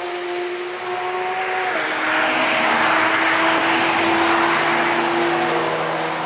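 Cars driving past at speed on a race track, a silver BMW M2 leading a black car: a steady engine note that drops in pitch about two seconds in as they go by, then a louder rushing noise for a few seconds before fainter engines of the next cars approaching.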